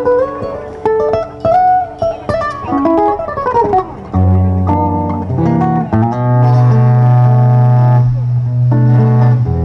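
Live folk band music: an acoustic guitar plays a melodic lead line with slides for about four seconds, then a bass guitar and the band come in with long, steady low notes under chords.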